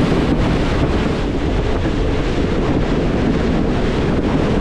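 Steady, loud rushing noise with a low rumble, typical of wind buffeting the microphone.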